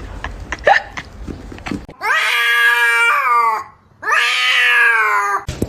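Domestic cat giving two long, drawn-out meows, each lasting about a second and a half, the second following close on the first.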